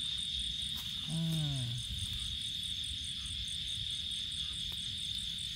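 Crickets chirping: one steady high trill, with an even pulsing chirp above it. About a second in, a man's voice gives a short low falling hum.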